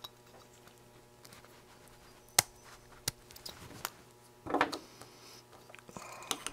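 Handling noises from a hand-held metal night-vision scope: a few sharp, separate light clicks and a short rustle as it is turned over in the hands.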